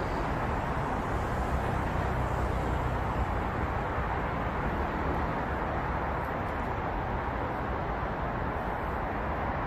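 Steady city traffic noise: a continuous wash of tyre and engine sound with a low rumble, no single vehicle standing out.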